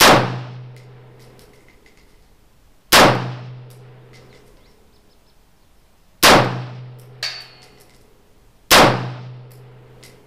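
Four single rifle shots from an AR-15 firing .223 ammunition, at a slow pace of about one every three seconds, each trailing off in a short echo. A light metallic clink comes about a second after the third shot.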